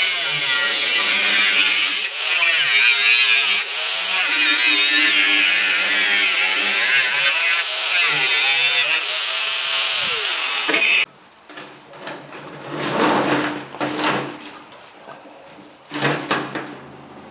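Angle grinder with an abrasive cutoff wheel cutting through an electric motor's case, a loud, steady grinding screech. The cut stops abruptly about eleven seconds in, followed by quieter, intermittent sounds.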